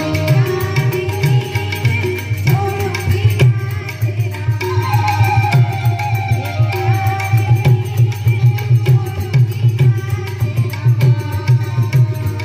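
Indian devotional folk music: a harmonium playing held, steady notes over a fast, even tabla beat.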